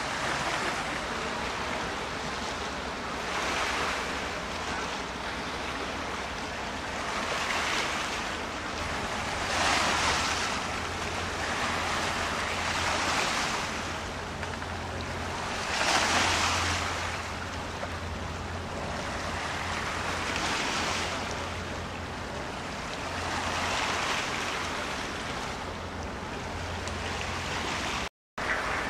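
Harbour water washing and wind on the microphone: a rushing hiss that swells and falls every few seconds over a low steady hum. The sound cuts out for a moment near the end.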